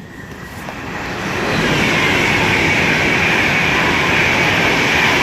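Train passing close by along the platform: a rush of wheel-on-rail noise that builds over about the first second and a half, then stays loud.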